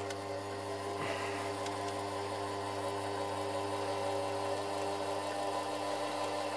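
Metal lathe running steadily in reverse with a steady motor hum, backing the die in a floating die holder off a freshly cut thread.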